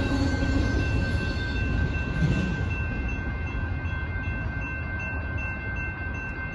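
Railroad crossing bells ringing steadily while the gates stay down, over the fading low rumble of a departing intermodal freight train.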